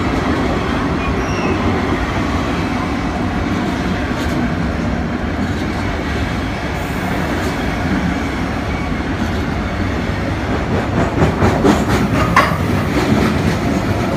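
A freight train's wagons rolling past with a steady rumble, and a run of sharp wheel clicks over rail joints near the end.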